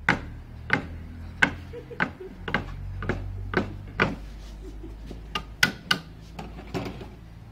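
About a dozen sharp knocks at an uneven pace, roughly one every half second, from food being worked by hand on a table, over a steady low hum.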